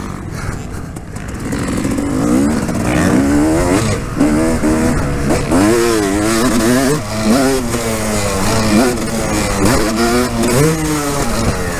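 Yamaha two-stroke motocross bike's engine, heard close up, revving up and dropping back again and again as the rider accelerates, shifts and rolls off the throttle over a run of small double jumps. It is quieter for the first second or two, then the revs climb and fall every second or so.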